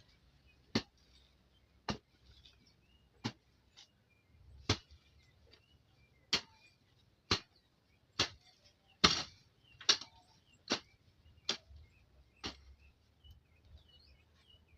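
Hand weeding tool chopping into soil and grass in a steady rhythm, about a dozen sharp strikes, roughly one a second.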